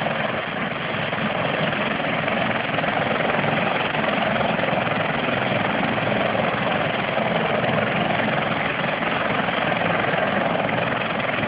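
CH-146 Griffon (Bell 412) twin-turbine helicopter running steadily on the ground, its main rotor turning at speed ahead of lift-off, heard through a phone microphone.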